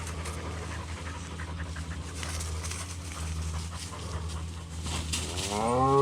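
A Blue Lacy herding dog panting hard over a steady low hum. Near the end a Texas Longhorn cow gives one moo that rises and then falls in pitch.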